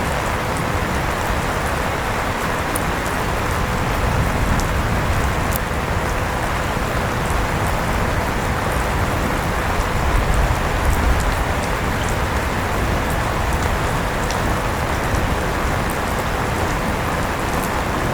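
Steady rain and a running electric fan: an even hiss with a faint steady hum and scattered light ticks of drops.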